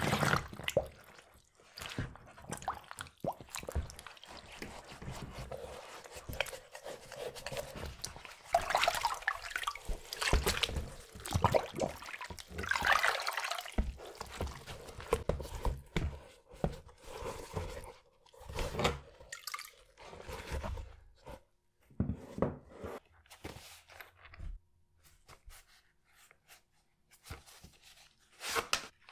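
Wet splashing and dripping in irregular bursts, with small knocks and clicks, as mud-covered sneakers are handled. It is busiest about a third of the way through and thins to scattered clicks near the end.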